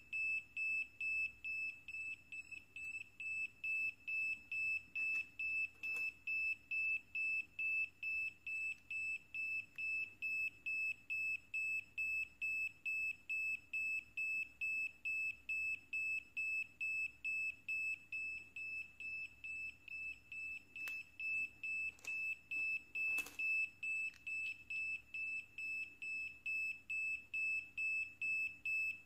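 Small piezo buzzer on an NE555/4017 tester board beeping over and over in an even rhythm, about two to three high beeps a second. Steady repeated beeping is the sign that the ICs under test are working. A few faint clicks come between the beeps.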